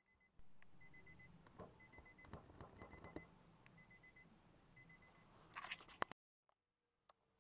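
Faint short electronic beeps repeating at a high, even pitch about once a second, over scattered faint clicks and knocks. A brief louder rustle near the end cuts off suddenly.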